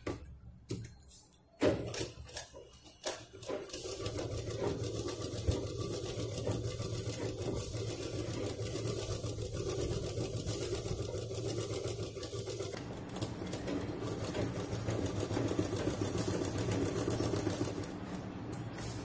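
Sewing machine stitching a seam along a zipper: a few separate clicks at first, then the machine runs steadily at a fast, even stitching rate from about three and a half seconds in, stopping shortly before the end.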